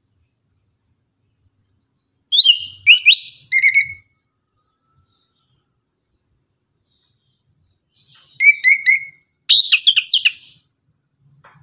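Chestnut-capped thrush (anis kembang) singing: a burst of loud, quick, varied whistled phrases about two seconds in, then a second burst starting about eight seconds in.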